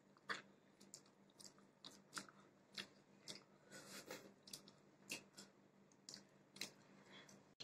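Faint chewing of a mouthful of grilled chicken: a string of soft, irregular mouth clicks and smacks, a few each second.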